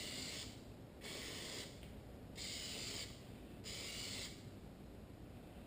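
Plasti Dip aerosol spray can hissing in four short bursts about a second apart as a coat is sprayed on.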